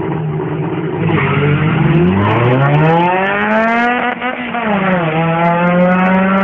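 Honda four-cylinder drag car engine at full throttle down the strip. The note holds steady briefly, then climbs steeply for about three seconds, drops sharply at an upshift a little past the middle, and climbs again.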